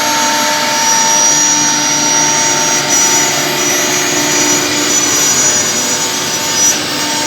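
Single-head CNC nesting router running: a loud, steady whine from the spindle over the rush of the vacuum hold-down, holding level throughout with only a brief dip near the end.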